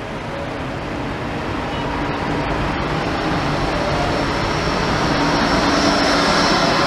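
Bombardier Flexity 2 tram approaching on the street track and passing close by, its running noise growing steadily louder, with a whine coming in over the last couple of seconds.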